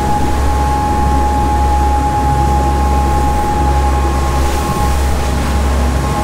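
A sportfishing boat running at cruising speed through rough seas: a steady low engine drone with a steady whine over it and the rush of water along the hull and wake.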